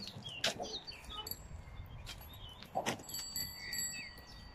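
Small birds chirping, with wind noise on the microphone and a few soft knocks.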